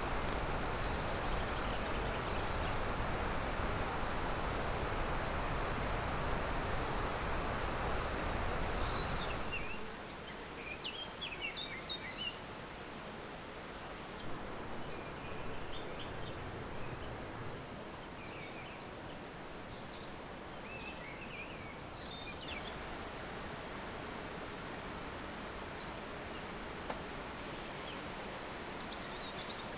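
Steady outdoor noise for the first few seconds, then it cuts suddenly to quieter ambience with scattered bird chirps.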